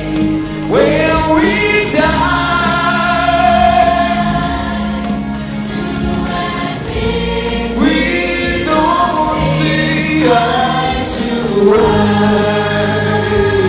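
A choir singing with a live band, the voices sliding up into long held notes several times.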